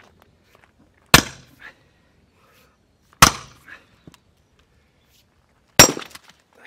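Three hard strikes of a heavy hammer on a steel splitting wedge, about two seconds apart, driving the wedge down into a knotty round of firewood. The last strike is followed by a brief crackle of the wood giving way.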